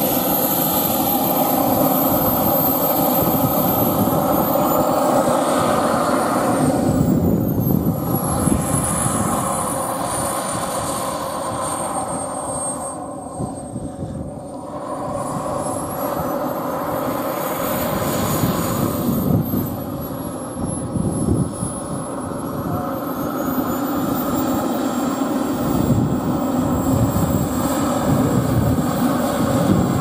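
Radio-control model jet's miniature turbine engine running as the plane taxis. A high whine slides down in pitch and back up a few times as the throttle changes, eases off in the middle, then grows louder again near the end.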